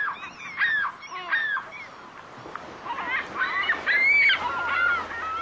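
A flock of birds calling, with many short honking calls overlapping, loudest about four seconds in.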